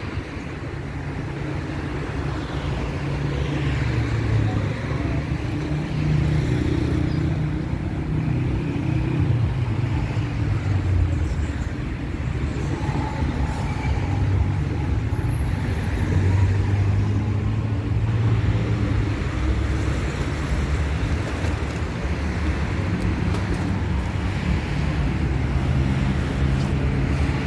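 City street traffic noise: passing cars and a steady low rumble of road noise, growing louder over the first few seconds.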